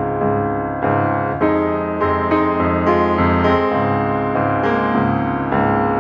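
Background piano music at a slow pace, with sustained notes and chords and a new one struck roughly once a second.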